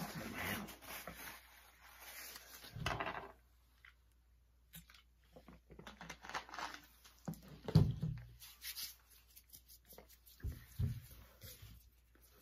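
Close-up eating and drinking sounds: gulps from a bottle of chocolate milk and the rustle of a paper bag of cookies, in scattered short bursts. The loudest is a low thump about eight seconds in.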